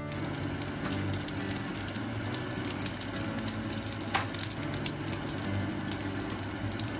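Eggplant slices sizzling steadily in hot oil in a nonstick frying pan, with crackles throughout. In the second half there are a few sharp clicks from metal tongs moving the slices.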